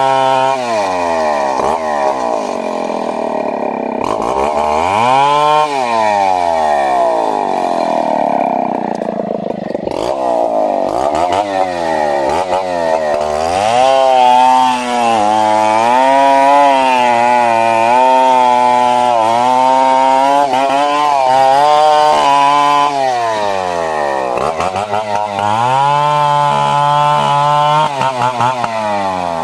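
Two-stroke chainsaw revving up and falling back several times, then held at high revs with a wavering pitch for about nine seconds as it cuts into wood, before dropping and revving up again near the end.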